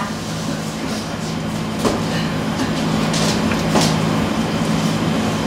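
A steady low hum, with a few knocks about two and four seconds in and brief rustles, as a person moves about on a stage in the dark.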